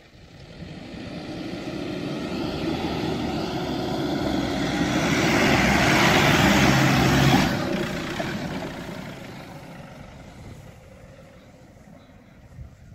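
Nissan Patrol 4WD driving through soft desert sand, its engine noise growing louder as it comes close, then dropping off sharply about seven seconds in and fading as it moves away.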